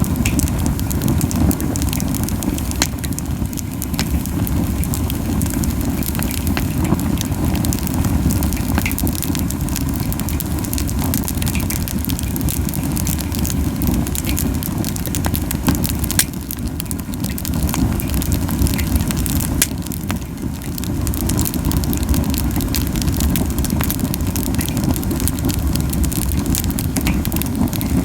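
Camellia wood fire burning hot, with a steady low rushing puff of strong flames and frequent sharp crackles and pops from the burning wood.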